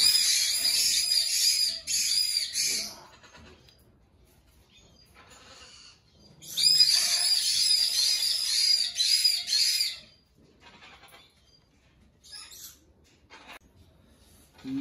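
White-bellied caique (a young yellow-headed marianinha parrot) calling in a rapid run of high, shrill, repeated chirps. There are two bouts of about three seconds each, the second starting about six and a half seconds in, with quiet between them and after.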